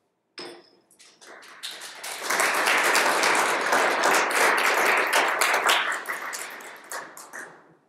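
Audience applauding: scattered claps grow into full applause about two seconds in, then thin out and stop near the end.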